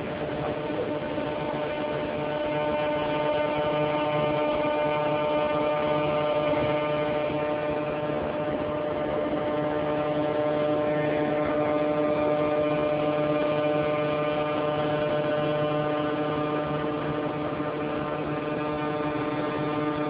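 Steady electrical hum with several even overtones over a constant background hiss, unchanging throughout.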